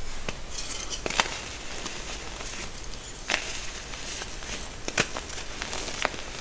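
Reformed gym chalk being broken and crushed by hand: a plain white chalk round snaps with several sharp cracks, between soft, powdery crumbling as the pieces are squeezed to dust.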